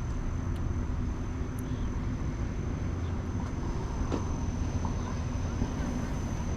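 Steady low outdoor rumble, with a thin steady high tone above it and a few faint clicks.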